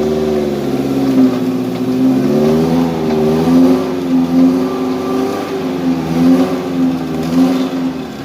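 Off-road 4x4 engine running under load on rough track, its revs rising and falling again and again.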